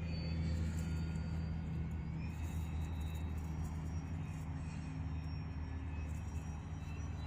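Radio-controlled Cub model airplane in flight: a steady motor and propeller hum with a thin high whine that rises slightly in pitch about two seconds in.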